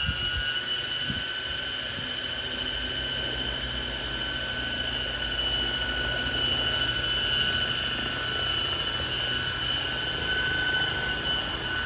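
Scale RC helicopter in flight: a steady high whine with several pitches that drift slightly, over an even low drone from the rotor blades.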